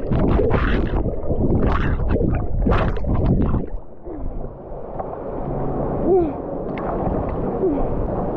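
Water splashing and churning loudly, cutting off suddenly a little over three seconds in. After that comes a quieter, muffled water background with a few faint brief pitched sounds.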